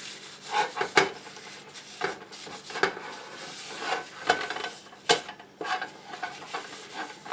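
Paper towel rubbing melted clarified butter over a warm cast iron skillet, with scattered light clinks and knocks of the pan.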